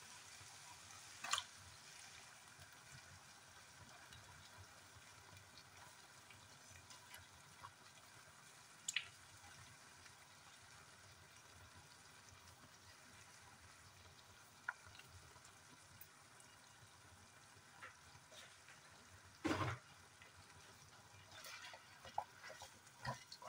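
Ground beef frying gently in a pan, giving a faint steady sizzle, with a few light knocks and taps. The loudest knock comes about twenty seconds in, and a wooden spoon starts working in the pan near the end.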